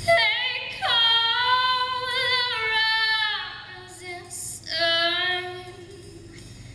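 A young female solo singer singing through a handheld microphone and PA, in three phrases of long held notes with vibrato, no accompaniment heard under the voice.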